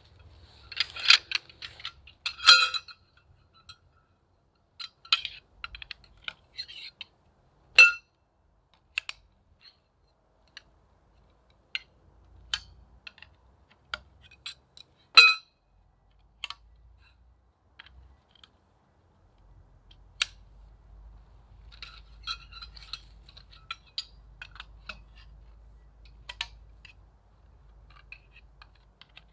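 Scattered light clinks and clicks, a few with a short ring, in a cluster at the start and then one at a time every few seconds, the sharpest about halfway through.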